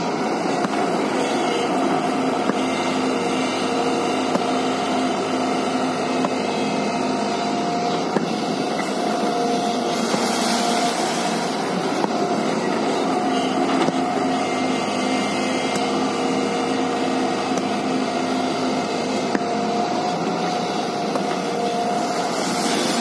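JCB tracked excavator's diesel engine and hydraulics running steadily under load, a constant mechanical drone with a steady whining tone, as the arm swings and the bucket dumps and digs sand. Brief rushes of hiss about ten seconds in and again near the end.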